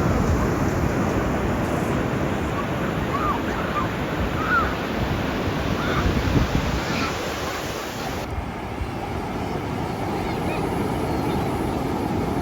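Ocean surf washing on the beach, with wind buffeting the microphone. A few faint, short high calls come through a few seconds in.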